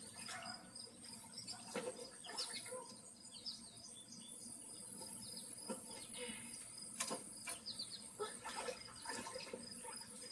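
Faint outdoor ambience of birds chirping and a steady high insect drone, with a few soft clicks.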